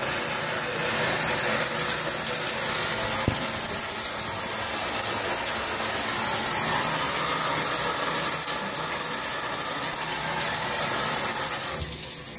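Shower panel running at medium flow: water spraying onto tile with a steady hum under the spray, a noise called super loud. The water shuts off at the very end.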